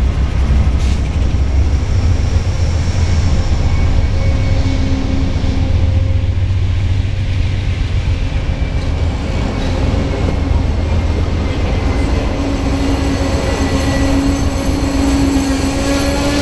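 Amtrak passenger train rolling past at close range: the second of its two GE P42DC diesel locomotives, then bi-level Superliner cars, with a steady deep rumble of wheels on rail. Thin squealing tones grow stronger and rise slightly near the end, as the train slows for its station stop.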